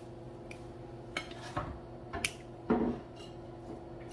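Eating sounds at a table: a few light clicks and clinks, with a louder, longer scrape about three seconds in, over a faint steady hum.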